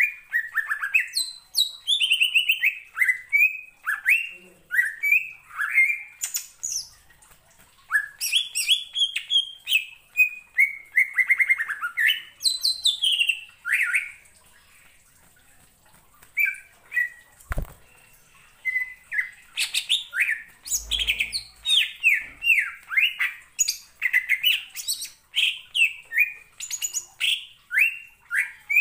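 Greater green leafbird (cucak ijo) singing: fast phrases of sharp, downward-slurred whistled notes, with a pause of a couple of seconds near the middle. A single knock comes shortly after the pause.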